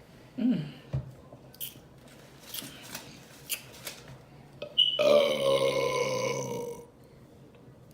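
A woman burps long and loud, a drawn-out belch of nearly two seconds starting about five seconds in. A short low sound comes near the start, and a few faint clicks fall in between.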